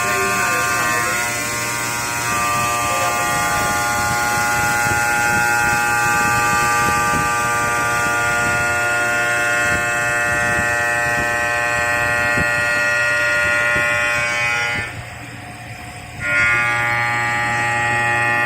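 ATC CNC stone machining center running, a steady whine made of several even tones; it cuts out briefly about 15 seconds in and comes back about a second and a half later.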